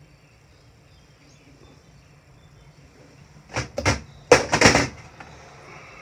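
Short bursts of handling noise as things are picked up and moved beside the stove: two quick ones, then a longer cluster, around the middle.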